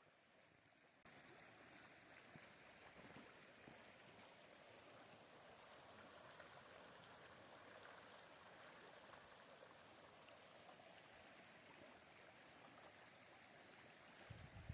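Faint, steady rush of river water flowing, coming in suddenly about a second in.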